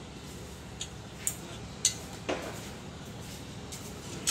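Small steel spanner clinking against the end-cover bolts and housing of a 2 HP three-phase electric motor as the bolts are tightened: a few separate sharp metal clinks.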